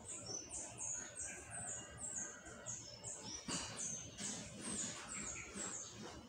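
A small bird chirping outside, a steady run of short high chirps, each stepping down in pitch, about three a second, stopping near the end.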